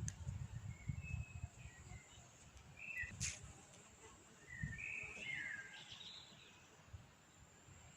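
Small birds chirping in short, scattered calls, clustered about three and five seconds in, over a low rumble that fades after the first two seconds and a single sharp click just after three seconds.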